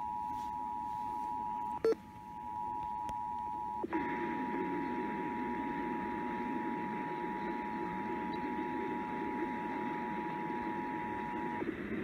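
The Emergency Alert System two-tone attention signal, a steady dual tone, plays through an FM radio's speaker as part of a Required Monthly Test. The tone cuts out briefly about two seconds in, and there is a click about four seconds in, after which a hiss rises beneath it. It stops shortly before the end.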